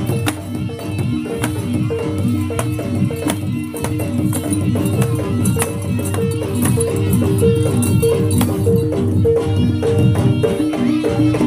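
Live jaranan gamelan music: pitched metal notes repeating in a quick, even pattern over a low steady bed, cut through by sharp percussive clacks and rattles.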